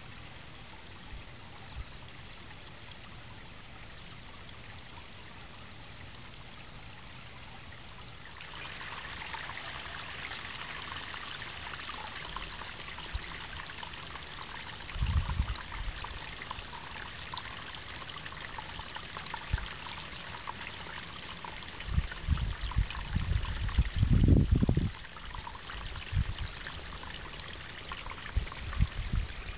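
Water trickling steadily, growing louder about eight seconds in. Low rumbling thuds break in near the middle and again toward the end, the loudest about three quarters of the way through.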